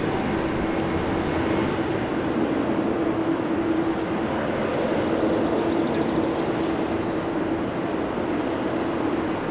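Boeing 777-300ER airliner's GE90 turbofan engines running during the landing rollout, spoilers raised as it slows on the runway. A loud, steady rumble with a steady hum held through it.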